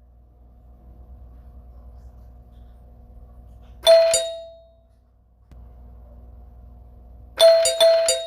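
Doorbell ringing. There are two quick chimes about four seconds in that ring out and fade, and a rapid run of four or five chimes near the end. A faint steady hum comes before each ring.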